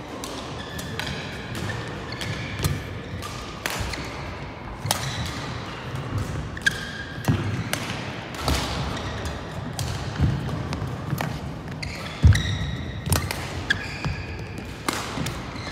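Badminton rally: rackets strike the shuttlecock about once a second, court shoes squeak briefly on the mat, and feet thud, all echoing in a large hall. The loudest thud comes about three quarters of the way through.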